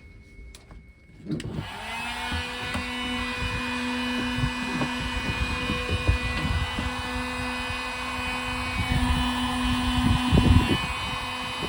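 Heat gun switched on about a second in and running steadily, its fan motor giving a constant hum, heating heat-shrink butt connectors on freshly crimped pump wiring. Light knocks of handling come through it.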